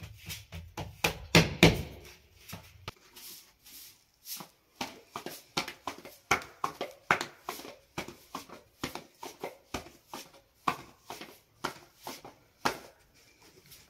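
Flattened bread dough slapped from palm to palm in quick, irregular pats as it is stretched into a thin round for the tandoor. A few heavier thumps come about a second and a half in.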